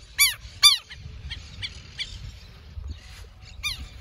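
Southern lapwing (quero-quero) giving harsh, repeated alarm calls: two loud ones close together in the first second, then fainter calls every so often. The bird is agitated at a person close by, with a chick that is said to be nearby.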